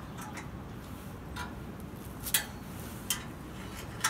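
Metal clinks and taps from a chrome exhaust tip being fitted onto a truck's tailpipe: five short sharp clicks about a second apart, the loudest about halfway through, over a steady low background noise.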